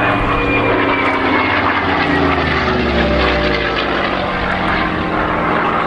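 Messerschmitt Bf109G-4's propeller-driven piston engine running loud in a fly-past, its pitch falling as the aircraft goes by.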